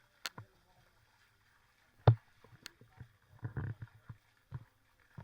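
Irregular knocks and clatters, the loudest about two seconds in, with a short run of rattling knocks a little past three seconds.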